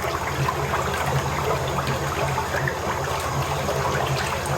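Soap-mixing machine running, churning a liquid batch of oils and lye solution: a steady low mechanical hum under a continuous liquid noise.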